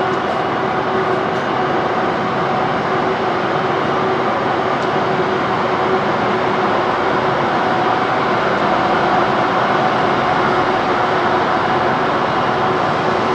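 Jet airliner engine noise: a steady rush with a faint whine, slowly growing louder.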